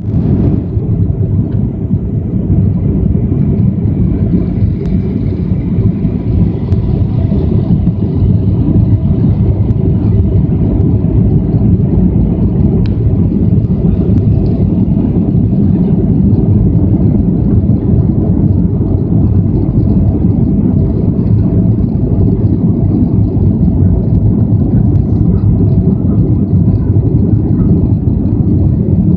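Jet airliner cabin noise on approach to landing: a loud, steady low rumble of engines and rushing air heard from a window seat, with faint steady tones running above it.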